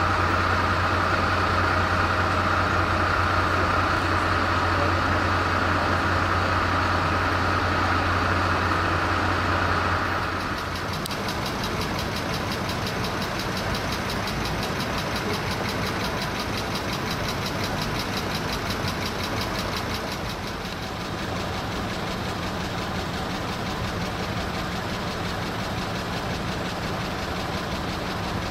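Emergency vehicle engine idling steadily. About ten seconds in, the sound changes: the low drone drops away, leaving a quieter, even running sound with a fine rapid ticking.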